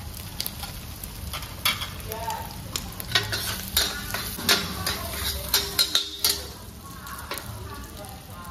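A metal spatula scrapes and clanks against a wok as sliced shallots and chopped meat are stir-fried over a gas flame, with hot oil sizzling throughout. The sharp clanks come thickest in the middle.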